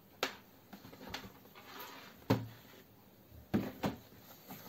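Cardboard kit box and its contents being handled on a desk: a few short knocks, two of them close together about three and a half seconds in, with light rustling between.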